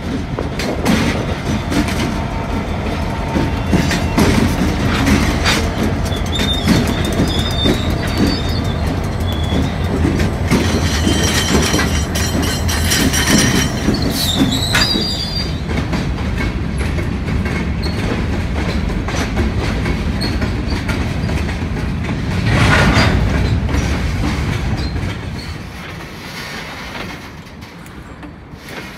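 Canadian Pacific freight train passing close by: two diesel locomotives running, then freight cars rolling past with a steady rumble and wheels clicking over the rail joints. A high wheel squeal rings out twice, about a quarter and halfway through.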